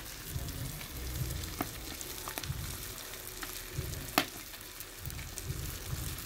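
Red mullet sizzling in a paper-lined metal dish over a charcoal grill, with a steady hiss and scattered sharp pops from the coals, the loudest about four seconds in. Intermittent low rumbles run underneath.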